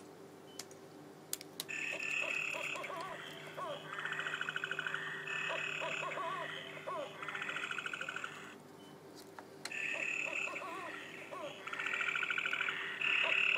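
Recorded night-time animal calls, chiefly frogs croaking and trilling, played back from a sound picture book's small speaker in repeated stretches of a second or two, over a steady electronic hum. A few sharp clicks come before the calls start.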